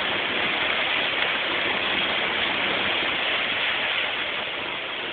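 Steady rushing of water from the flooded road, an even hiss that eases slightly near the end.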